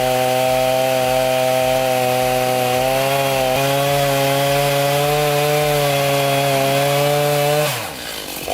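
Chainsaw running at full throttle, cutting wood, with a slight rise in pitch about halfway through. Near the end the engine note drops away as the throttle is released.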